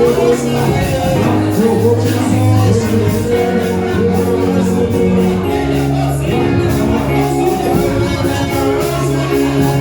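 Worship music with a bass line of held low notes and a steady drum beat, with singing.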